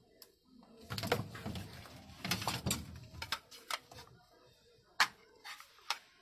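Clatter and rustle of dishes being handled: bowls, spoons, squeezed plastic sauce bottles and saucers knocking on a metal counter as chotpoti is served. A busy run of clicks and rustling about a second in, then three sharp clicks near the end.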